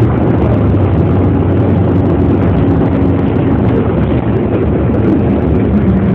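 Steady, loud rumble of a moving vehicle heard from inside its cabin: road and running noise with a low engine hum underneath.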